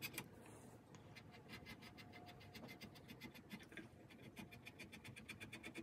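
Flat wood chisel paring the corner of a wooden stool leg by hand: a quick, even run of faint scraping strokes as the corner is trimmed into a rounded curve.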